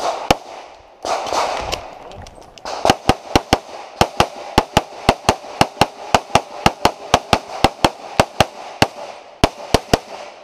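Rapid strings of pistol shots from an STI 2011-pattern .38 Super open-division pistol with a compensator, about three to four shots a second. There is a break of about a second and a half roughly a second in, then nearly continuous firing, with a short pause near the end before a few final shots.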